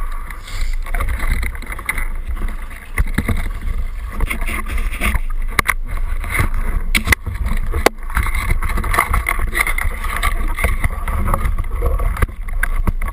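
Water sloshing and splashing against a small boat's side, with wind rumbling on the microphone. A few sharp knocks come a little past the middle.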